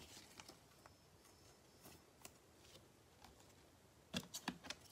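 Glossy Prizm basketball trading cards being flipped through by gloved hands: faint slides and ticks, then a quick run of four or five sharp clicks about four seconds in as cards are moved from the front of the stack to the back.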